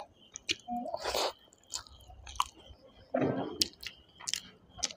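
Chewing of a mouthful of chicken curry and rice, with scattered short, sharp mouth clicks.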